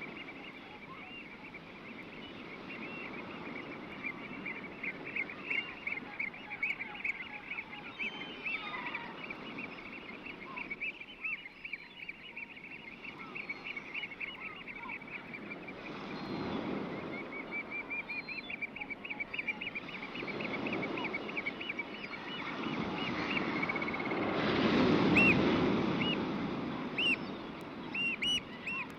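Waves breaking on a shore, surging several times and loudest a little before the end, with a bird calling in long fast runs of high repeated notes, several a second, over them.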